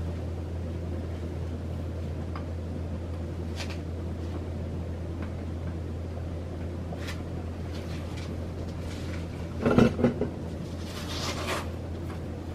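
Harbor Breeze Mazon DC-motor ceiling fan running with a steady low hum and scattered light rattling ticks. A louder knocking clatter comes about ten seconds in.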